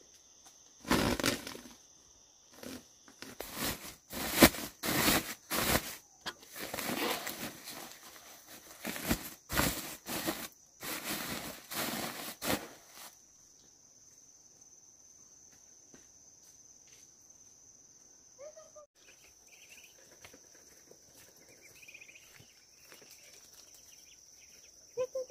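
Irregular bouts of rustling and crackling for roughly the first half, then it goes quiet. Under it an insect keeps up a steady high-pitched trill.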